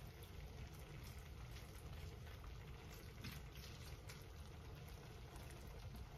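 Very quiet: a few faint soft clicks of kitchen tongs serving fettuccine from a pan onto a plate, over a low steady hum.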